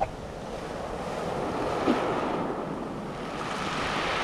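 Sea surf breaking and washing up a pebble beach, with wind buffeting the microphone. A short thump about two seconds in is the loudest moment.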